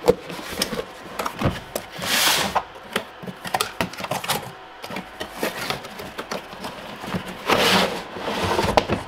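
Cardboard box being opened by hand: flaps bending and rubbing with scattered taps and scrapes. Near the end, a longer scraping rush as a hard plastic tool case slides out of the box.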